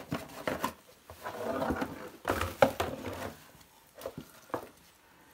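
A coiled plastic-jacketed heating cable being lifted out of its cardboard box and handled. It rubs and rustles, with a quick cluster of clicks and knocks in the middle, the sharpest about two and a half seconds in, then a few lighter clicks.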